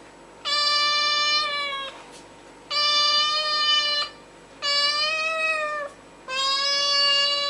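Domestic cat meowing: four long, drawn-out meows about two seconds apart, each holding a steady pitch and dropping slightly at the end.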